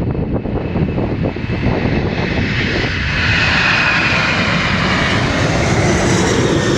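Boeing 747's four jet engines at high thrust on departure. The engine noise grows louder from about two seconds in, adding a strong high whine and rush on top of a low rumble.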